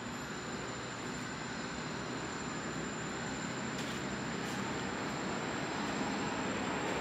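Steady rushing background noise that slowly grows louder, with a thin, high, steady whine and a few faint clicks.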